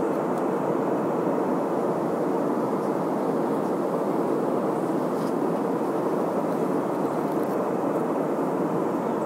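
Steady roar of an airliner's cabin in flight: engine and airflow noise heard inside the cabin, even and unchanging.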